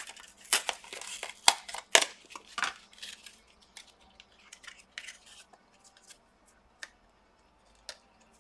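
Gloved hands handling laptop parts while disconnecting the battery: a run of sharp plastic clicks and scrapes over the first three seconds, then a few faint ticks.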